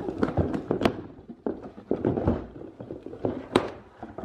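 Cardboard shipping box being opened by hand: packing tape tearing along the seam and the cardboard flaps crackling and rustling as they are pulled open, with a sharp snap about three and a half seconds in.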